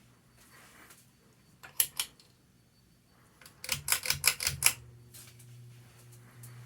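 Pull-chain switch of a Hampton Bay Huntington ceiling fan clicking: two clicks about two seconds in, then a quick run of about six clicks a couple of seconds later. After the run, the fan motor hums steadily and more loudly. The fan has a bad capacitor, so the pull chain steps it high-off-low-off instead of through medium.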